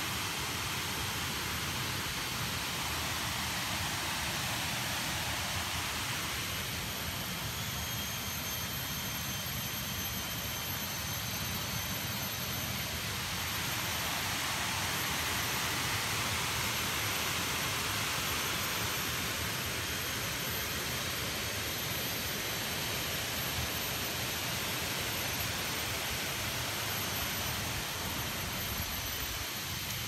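Steady rushing of a waterfall, an even roar of water with no breaks.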